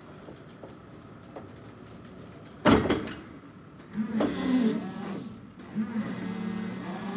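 Kalmar EC5-600 electric forklift: a single loud clunk about two and a half seconds in, then its electric motors whine from about four seconds, settling into a steady hum whose pitch dips and rises near the end.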